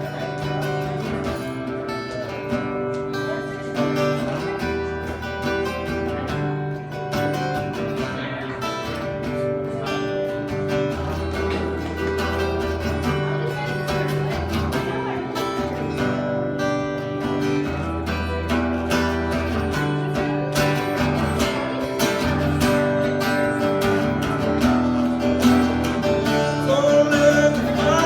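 Acoustic guitar strummed through an instrumental passage of a live song, with sustained low bass notes changing every couple of seconds underneath.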